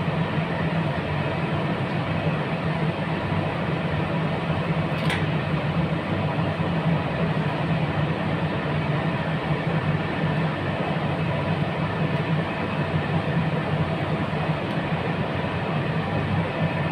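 A steady mechanical drone: a low hum under an even rushing noise that holds unchanged, with one faint tick about five seconds in.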